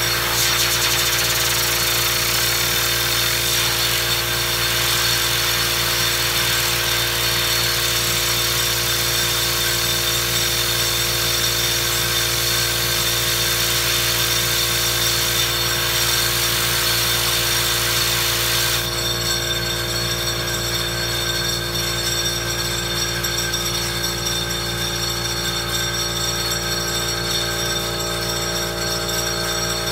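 Compressed air hissing steadily from a blow gun aimed at a fidget spinner, cutting off suddenly about two-thirds of the way through. A steady hum with several fixed tones, the air compressor running, goes on underneath throughout.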